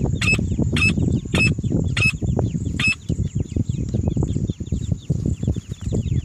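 Female francolin (teetar) calling: a run of about five sharp, clipped notes roughly every 0.6 s that stops about 3 s in. Faint quick down-slurred chirps and a low rumble continue underneath.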